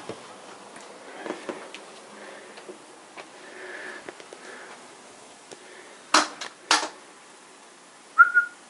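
Faint rustling and handling noise, then two sharp clicks a little over half a second apart, and a brief high squeak near the end.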